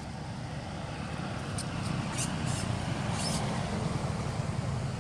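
Low rumble of road traffic, a motor vehicle on the road growing slowly louder, with a few brief high-pitched sounds about halfway through.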